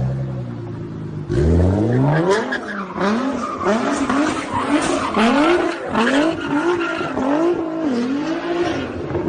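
Nissan GT-R's twin-turbo V6 revving sharply about a second in, then surging up and down in pitch again and again as the car spins its rear tyres, with continuous tyre squeal over the engine.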